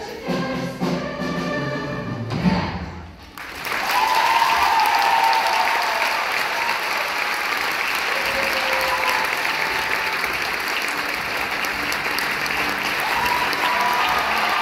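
A show choir's song ends about three seconds in. The audience then breaks into loud applause with cheering, which carries on steadily.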